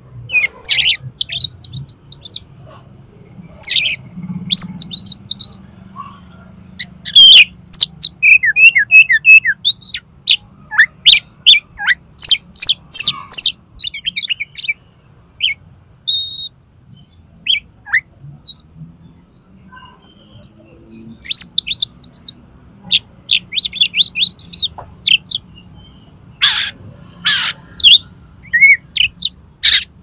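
Oriental magpie-robin (kacer) singing: a fast, varied string of chirps and whistles broken by short pauses, with a few loud harsh notes.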